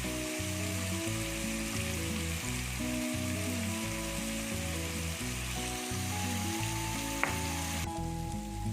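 Marinated chicken pieces sizzling in hot oil in an appam pan, a steady frying hiss that cuts off suddenly near the end, under background music with a plodding bass line.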